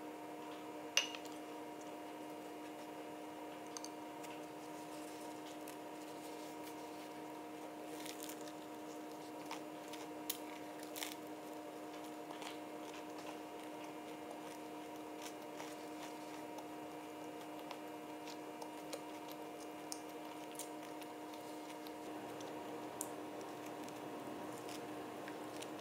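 Close-miked eating: a glass mug set down on a stone countertop with a clink about a second in, then scattered small bites, chewing and mouth clicks while eating a fried chicken tortilla wrap, over a steady low hum.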